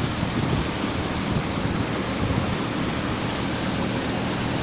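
Steady rushing noise aboard a moving river boat: wind and water rushing past, with no distinct engine tone or sudden sounds.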